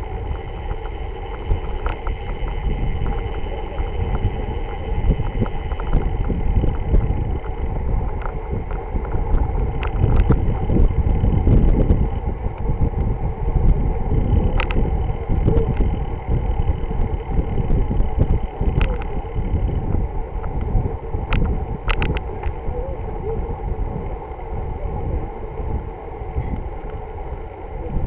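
Wind rushing over the microphone of a camera riding on a road bike, mixed with rumble from the tyres on the road surface. A few sharp clicks stand out around the middle.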